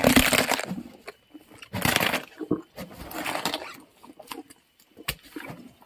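A hippo eating, crunching and chewing pumpkin and vegetables: three loud, noisy crunching bursts in the first few seconds, then fainter scattered clicks.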